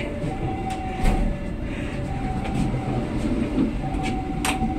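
Passenger train running at speed, heard from aboard the coach: a steady rumble with a faint tone that comes and goes, and pairs of sharp clicks from the wheels crossing rail joints, about a second in and again near the end.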